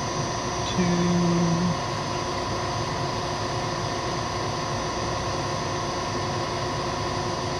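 Vertical milling machine running with its spindle turning: a steady hum with several constant tones. About a second in, a short low hummed tone sounds over it for just under a second.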